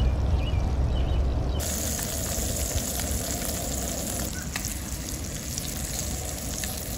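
Whole blackened bluegill frying in hot oil in a nonstick skillet, a steady sizzle. The sizzle comes in loud about a second and a half in, over a low rumble.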